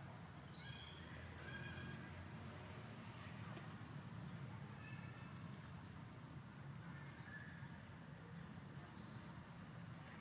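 Faint, short, high-pitched animal calls: brief chirps and squeaks, one after another at irregular intervals, over a low steady background rumble.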